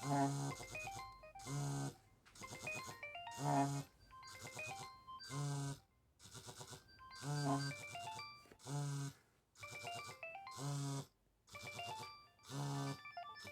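Nokia mobile phone ringtone: a polyphonic melody of short stepped notes. The vibration motor buzzes in pulses about every two seconds, rattling the handset against its surface.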